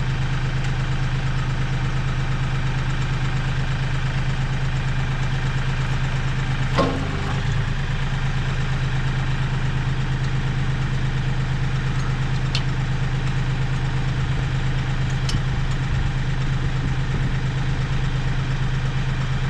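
Compact tractor engine idling steadily. About a third of the way in there is a single sharp metal clank, with two lighter clicks later, from the back blade's three-point hitch being fitted.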